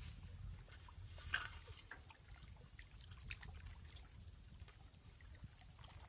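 Faint trickling and small splashes of shallow water as a gill net is worked around a sawfish, with scattered light clicks and one sharper tick about a second in.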